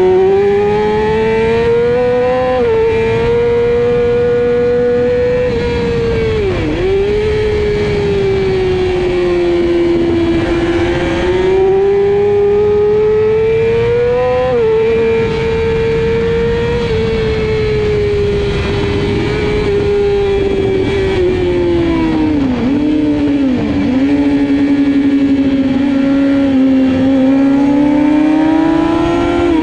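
Sport bike engine at racing speed, heard onboard: the engine note climbs through the revs and drops at upshifts, with quick blipped downshifts into corners about seven seconds in and again near the end. Steady wind rush runs under the engine.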